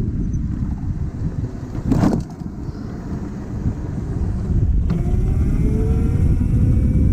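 Scooter on the move: low rumble and wind noise on the microphone, with a short burst about two seconds in. About five seconds in, a rising whine of the motor picking up speed joins.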